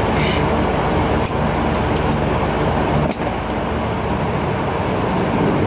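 Saab 2000's Allison AE 2100 turboprop engine and propeller running during taxi, heard from inside the cabin: a steady drone with a low propeller hum, and a few faint clicks about a second in and around three seconds.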